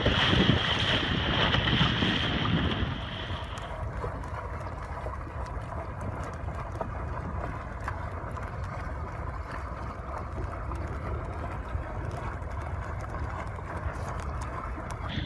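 Wind buffeting the microphone and water rushing past the hull of a small sailboat under way. About four seconds in the sound drops to a quieter, steady low wind rumble.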